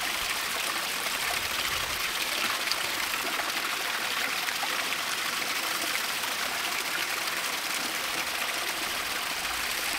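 Steady splashing rush of water: creek water from the supply pipe gushing into and out of an open, uncovered filter bucket.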